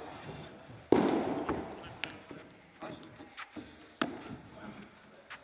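Padel ball being struck by rackets and bouncing off the court and glass walls: a string of sharp, irregular knocks, the loudest about a second in, each ringing briefly in the hall.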